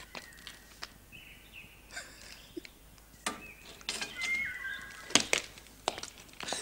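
Birds chirping in short whistled notes, with several sharp knocks and clicks scattered through, the loudest about five seconds in.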